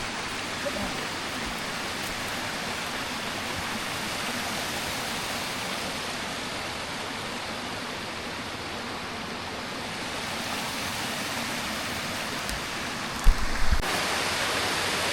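Steady rush of running stream water. Near the end there is a sharp knock, and the rush then gets louder and hissier.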